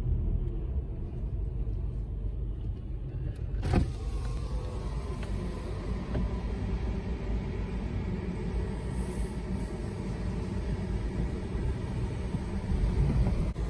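A car's engine idling, heard from inside the cabin as a steady low rumble. A single sharp knock about four seconds in, after which more outside hiss comes in.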